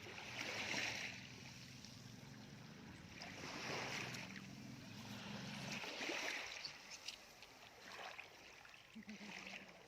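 Small waves washing up on a sandy beach, swelling and falling back every couple of seconds. A low steady hum runs underneath and stops about six seconds in.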